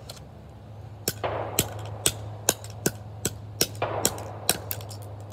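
Claw hammer striking a small camera on asphalt, about a dozen sharp blows at two to three a second starting about a second in, some with a brief clattering ring, over a steady low hum.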